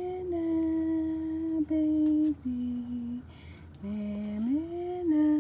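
A woman humming a slow lullaby tune in long held notes: each phrase slides up, holds, then steps down twice, and the phrase starts over about four seconds in.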